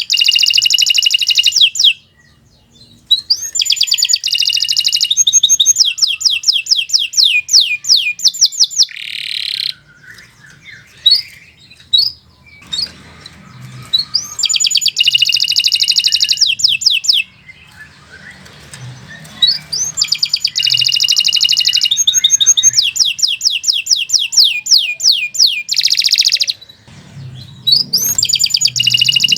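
Domestic canary singing: long phrases of fast, rapidly repeated trilled notes, one after another with short pauses between them.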